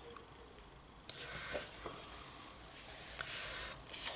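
Pages of a paper colouring book being handled and turned: soft paper swishes and rustling, starting about a second in, with a few small ticks.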